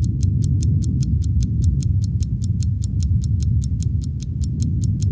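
Rapid, even clock ticking, about five ticks a second, over a steady low rumble.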